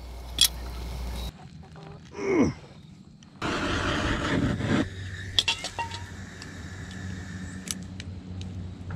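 Hand-held propane torch burning with a loud hiss for about a second and a half, starting and stopping sharply, as it warms black poly water pipe to soften it for a fitting. Earlier, a short sound falling in pitch.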